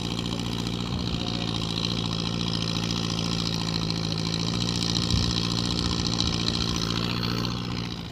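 Tractor diesel engine running at a steady speed. It drops in level near the end.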